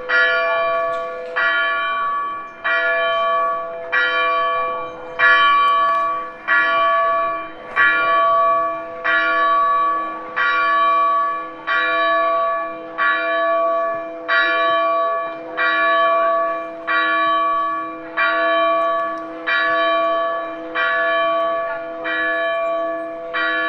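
A single church bell tolling steadily, struck about once every 1.3 seconds, each stroke ringing on into the next.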